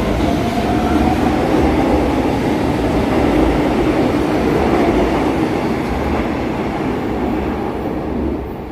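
São Paulo Metro train running on the track, a steady loud rumble of wheels and motors with a faint whine over it, growing quieter about eight seconds in as it draws away.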